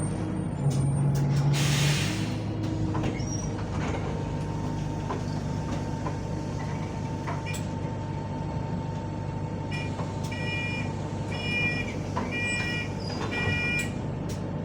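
Bus heard from inside: the engine runs steadily low, a short burst of compressed-air hiss comes about a second and a half in, and near the end five short electronic beeps sound in quick succession, typical of the door-closing warning.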